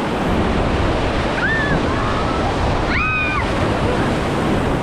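Rushing white water of river rapids, a dense steady roar, with wind buffeting the microphone. Short high-pitched shouts from people cut through about a second and a half in and again about three seconds in.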